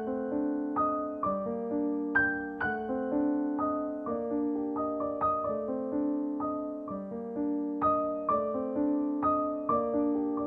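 Background solo piano music, notes and chords struck about twice a second and left to ring out.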